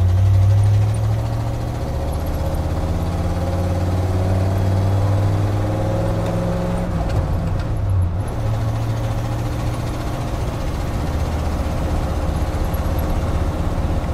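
Ramp truck's engine running under way on the road, its note rising slowly for several seconds, dipping briefly about halfway through, then holding steady.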